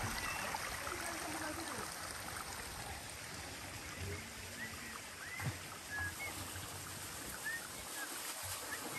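Steady hiss of running water, with a few short high chirps scattered through the middle.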